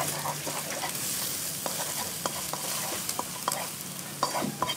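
Beaten egg with soy sauce frying in hot oil in a pan, sizzling steadily while a spatula stirs and breaks it up, with scattered clicks of the spatula against the pan.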